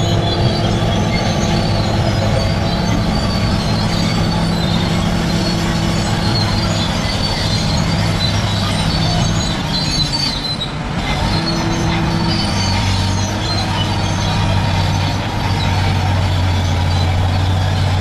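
Crawler bulldozer working, its diesel engine running steadily under load while the steel tracks squeal and grind. The engine eases off briefly a little past halfway, then picks up again.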